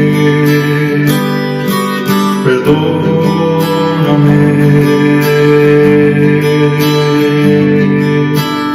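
Acoustic guitar strummed, chords played in a steady rhythm.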